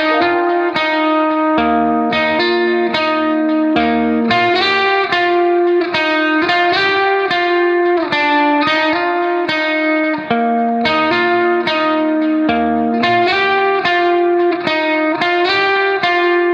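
Background instrumental music: a plucked string instrument playing a steady run of quick notes over a lower bass line.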